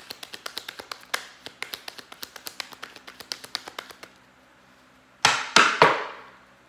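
Tarot cards being shuffled by hand: a quick run of card flicks, about four or five a second, then a short lull. Near the end come three loud, sharp knocks close together, the loudest sounds here.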